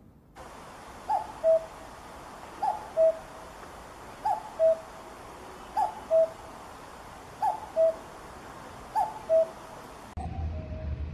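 Common cuckoo calling its two-note 'cuck-oo', the second note lower than the first, six times at about one call every one and a half seconds. About ten seconds in, the sound cuts to fainter cuckoo calls over a low rumble.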